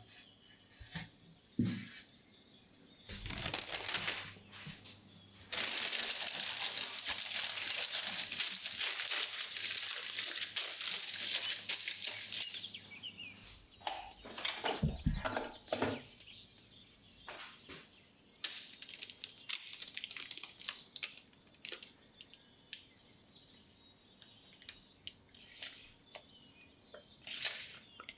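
Baking paper crinkling and tearing for several seconds as it is fitted into a cake pan. Then a spatula scraping and knocking inside a plastic food processor bowl, followed by scattered light scrapes and taps.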